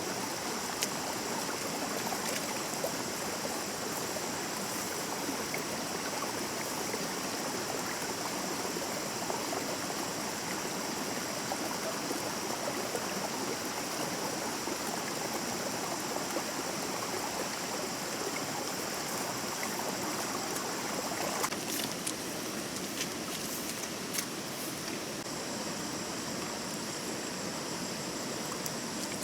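Small stream flowing steadily, an even rushing trickle of water. About three-quarters of the way through, the water sound thins slightly and a few faint clicks come through.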